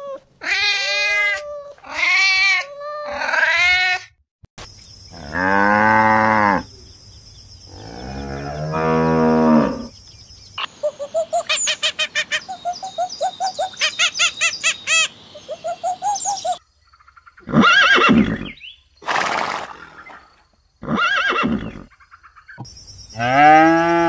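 A string of different animal calls. It opens with four short meows from kittens, then two long, lower calls, a rapid stuttering run of calls, and a few short calls. It ends with a loud moo from a water buffalo.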